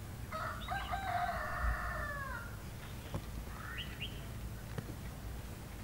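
A rooster crowing once: a call of about two seconds that drops in pitch at the end, then a short second call about three and a half seconds in.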